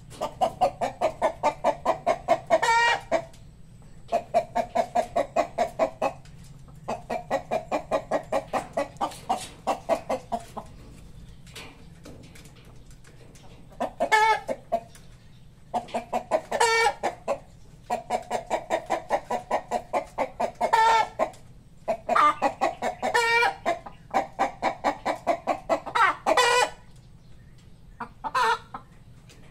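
Chickens clucking in long runs of rapid clucks, about five a second, broken now and then by a louder, sharper call, about seven times.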